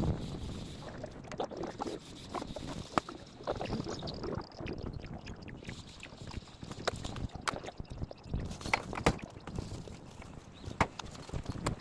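Irregular sharp knocks and thuds over a low background rumble, a few strong ones standing out near the middle and toward the end.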